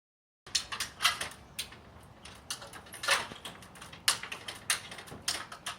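Irregular sharp clicks and light knocks, a dozen or so, of a dog's claws and feet on a ladder.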